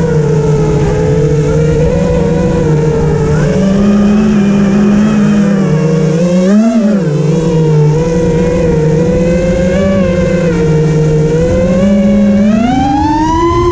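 An engine running, its pitch stepping up and down, briefly rising and falling about seven seconds in, then climbing steadily near the end.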